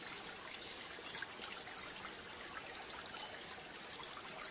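Soft, steady trickling of running water, like a small stream.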